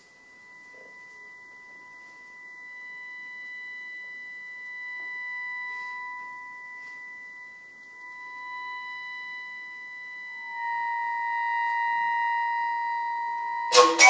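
Accordion holding a high, soft chord of a few steady tones, sho-like, that slowly swells and grows louder with an added note about ten seconds in. Right at the end, sharp, loud attacks break in as the recorder enters.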